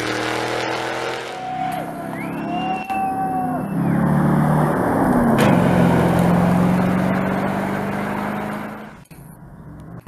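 Rally-raid cars' engines running hard on a snowy stage, including a Toyota Land Cruiser 200 passing close, its engine pitch dropping as it goes by and then holding steady. The sound drops off sharply near the end.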